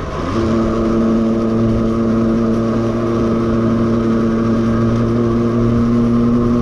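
Tuned Aprilia two-stroke moped engine with an aftermarket exhaust under way. It climbs in pitch for a moment at the start, then holds a steady high-revving note.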